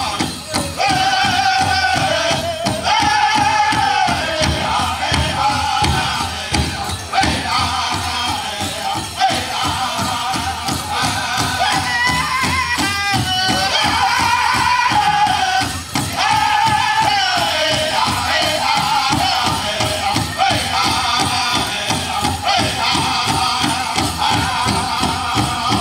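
Pow wow drum group singing a chicken dance contest song in high voices, with sung phrases that start high and slide down, over a steady beat on the big drum. Dancers' ankle bells jingle along with the beat.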